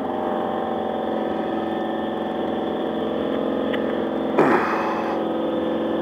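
Motorcycle engine idling steadily. About four and a half seconds in there is a brief, louder sound that falls in pitch and ends in a short hiss.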